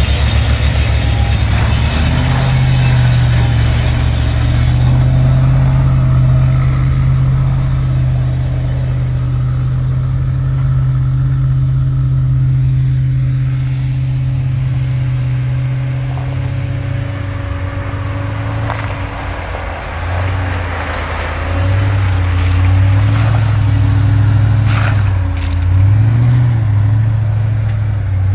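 Land Rover Discovery 2 engine pulling off-road, held steady at first, then rising and falling in pitch over the second half as the throttle is worked, with a couple of sharp knocks.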